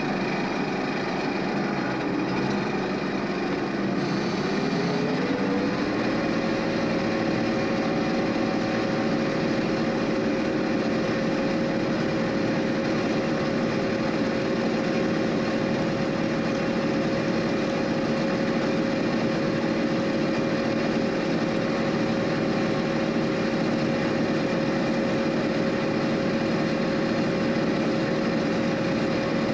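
John Deere 6620 combine running steadily while harvesting corn; its pitch rises over the first few seconds and then holds even.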